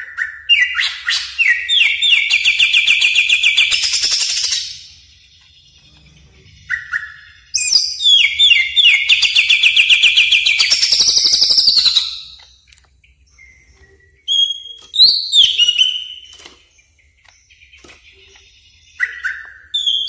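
Cucak ijo (green leafbird) singing: two long, loud phrases of rapid trilled notes, each about four seconds, then shorter whistled phrases in the second half.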